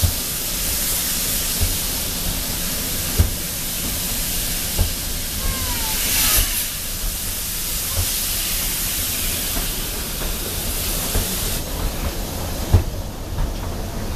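Narrow-gauge steam train running, heard from an open carriage window: a steady rush of wind and steam hiss with a knock from the rail joints about every second and a half. The hiss thins near the end.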